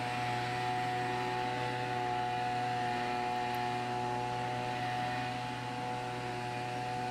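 Tanaka TRB24EAP handheld leaf blower's 23.9cc two-stroke engine running steadily at one unchanging pitch, with the rush of air from the nozzle.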